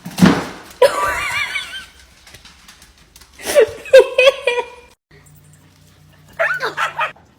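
An animal's wavering, high-pitched cries in three short bouts, after a sharp noisy sound right at the start.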